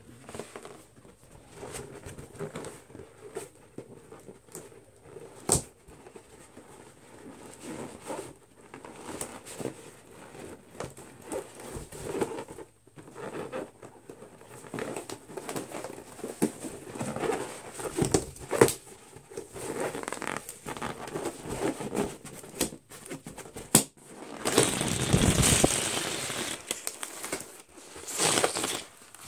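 Latex balloons being handled and squeezed by hand and fingernails: a run of rubbing, squeaking and crinkling against the rubber. Two sharp snaps come through, one a few seconds in and a louder one about three-quarters of the way through. A louder stretch of rough rubbing noise follows the second snap.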